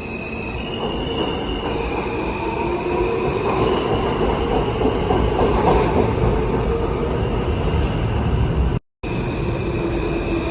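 New York City subway J train running on the rails, a steady rumble with high, steady wheel squeals over it. It grows louder toward the middle. The sound cuts out completely for a moment about nine seconds in.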